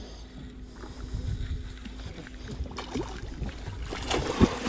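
Ambience aboard a small fishing boat at sea: a low rumble with scattered knocks, and a faint steady hum that stops about three seconds in. It grows louder near the end.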